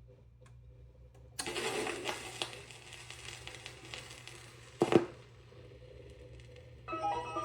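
Crackle and rustling handling noise from the turntable through the speakers, starting suddenly and lasting about three seconds, with a sharp thump about five seconds in, over a steady low hum; music from the record begins near the end.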